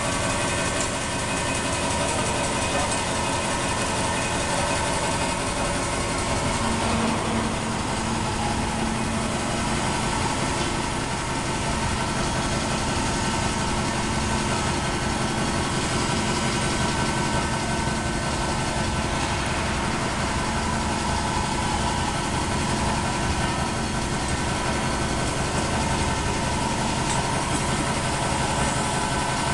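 DX4080 beam end face milling machine facing the end of a welded steel box beam: a steady machining drone with a constant whine over it. A lower hum joins about six and a half seconds in and holds.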